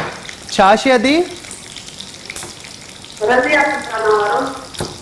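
Oil frying in a kadhai on the stove, a steady sizzle, with two short stretches of a voice talking over it, about half a second in and about three seconds in.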